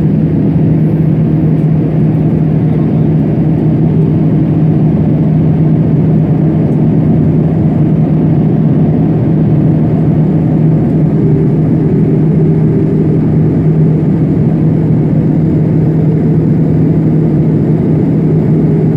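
Jet airliner cabin noise at a window seat beside a Rolls-Royce turbofan engine: a loud, steady rumble with a constant low hum.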